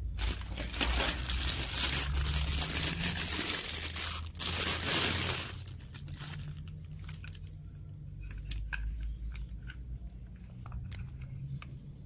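Plastic bags and bubble wrap crinkling and rustling loudly as fan parts are pulled out of their packaging, for about five seconds, then settling into scattered small crackles and clicks.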